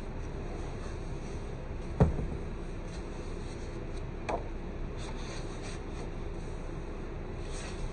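Aged paper pages of an old hardcover book being turned by hand, with soft rustling and brushing over a steady background hum. A single thump about two seconds in is the loudest sound, followed by a lighter tap a couple of seconds later.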